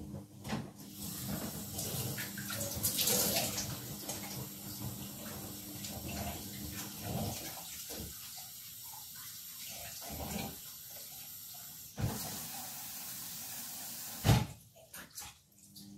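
Kitchen tap running into a plastic basin in the sink, with splashing as a plant is rinsed in it. The water sound changes abruptly about twelve seconds in, and a single knock follows a couple of seconds later.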